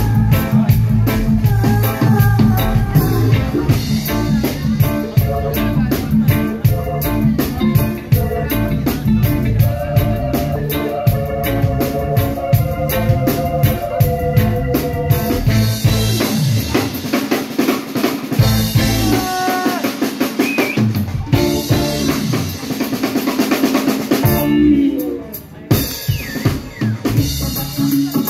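Live reggae band playing an instrumental passage, with the drum kit to the fore: snare and rimshots over bass drum, with keyboard lines. The playing thins out after about 15 seconds, with sliding tones and a brief drop near the end.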